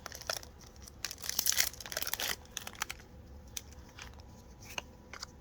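Foil wrapper of a Pokémon card booster pack crinkling and tearing as it is opened, in a dense burst about a second in, followed by a few light clicks.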